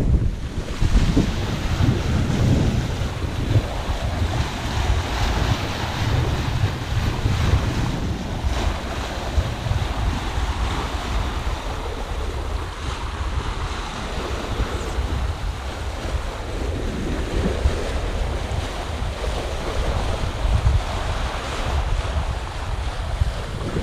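Wind buffeting the microphone in uneven gusts over the steady rush and splash of water along the hull of a sailboat under way.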